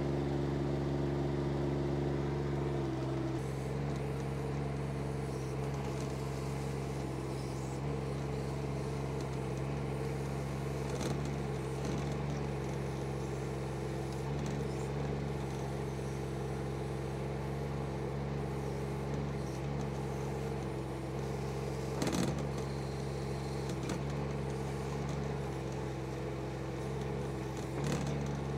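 Chinese mini excavator's small engine running steadily as it works the rake through weeds, its tone shifting a few seconds in. A few sharp knocks stand out.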